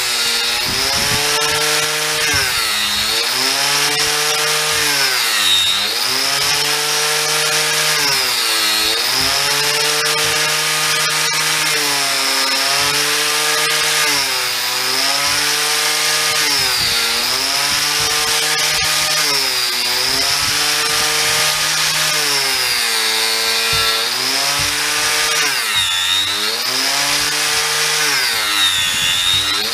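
An electric angle grinder is running as it cuts into a solid French oak beam. The motor's pitch sags and recovers about every three seconds as the disc is pushed into the wood and eased off, with a rasping cutting noise throughout.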